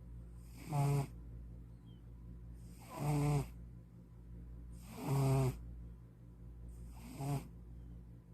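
Cat snoring in its sleep: four snores about two seconds apart, each a short pitched rasp, the last one shorter and fainter.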